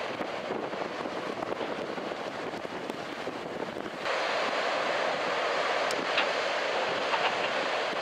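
Strong wind rushing over the microphone together with the steady wash of breaking surf. The rush steps up suddenly about halfway through and stays louder.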